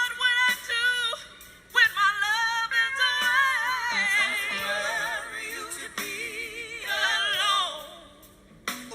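Female singer's live vocal: wordless runs and long held notes with a wide vibrato, over sparse accompaniment.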